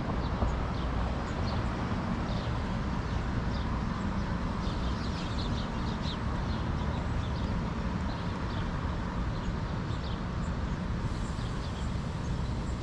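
Many short, high bird chirps over a steady low rumble.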